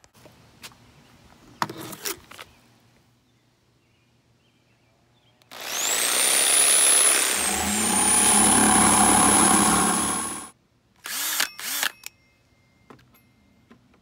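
Jigsaw spinning up with a rising whine and cutting through a white plastic lid for about five seconds, its pitch dipping briefly midway through the cut before climbing again; two short bursts of sound follow about a second after it stops.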